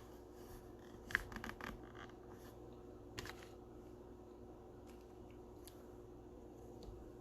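Trading cards being handled and slid against one another: a quick run of scratchy clicks about a second in, another short one around three seconds, and a few faint ticks, over a low steady hum.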